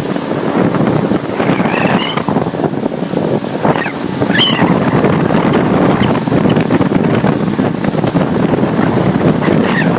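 Wind buffeting the microphone over the wash of water around a boat at sea, a steady loud rush with no break.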